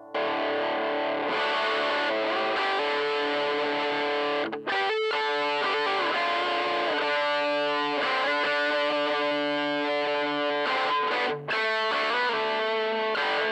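Electric guitar played with crunchy overdrive through one of two Joyo crunch pedals into a 5E3 tweed Deluxe–style tube amp, ringing chords and single notes. It breaks briefly about four and a half seconds in and again near eleven and a half seconds.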